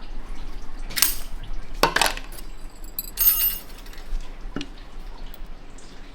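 Steel parts of an NV5600 manual transmission knocking and clinking together as they are handled and taken apart: a few sharp metallic knocks, the one about three seconds in ringing briefly.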